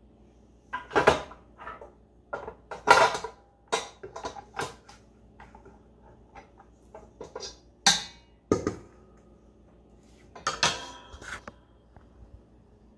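Stainless steel bowl of a KitchenAid stand mixer being handled and taken off the mixer, with irregular metal knocks and clanks.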